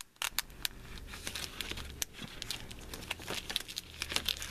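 Small clear plastic bags crinkling and crackling as they are handled and pulled apart, a run of short irregular crackles.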